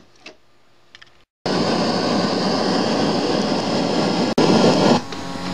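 Loud FM static hiss from the cassette player's speakers: the add-on USB/FM module is tuned to no station, at the bottom of the band. It switches on suddenly about a second and a half in, after a few faint clicks, and drops out for an instant near the end.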